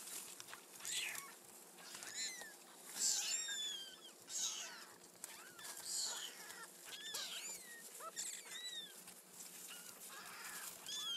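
A litter of week-old kittens mewing: high, thin calls repeated about once or twice a second, some falling in pitch at the end.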